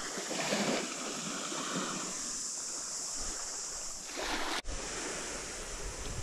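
Steady rush of small waves washing on the beach, with wind noise. The sound drops out briefly about four and a half seconds in, then the same wash carries on.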